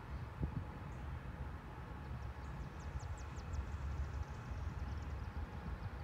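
Low, uneven outdoor rumble, with a bird's quick run of high, falling chirps about two and a half to three and a half seconds in.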